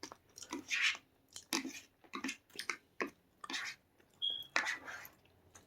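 Close-up chewing and mouth sounds of a person eating rice, a string of short separate smacks and chews with pauses between them, and a brief high ping about four seconds in.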